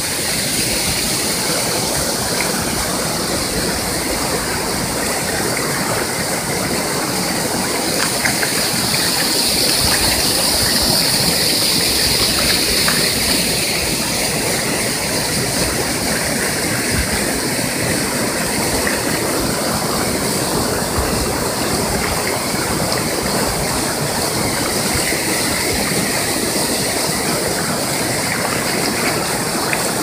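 Small waterfall pouring into a rocky pool: a steady rush of falling and churning water, a little louder about ten seconds in.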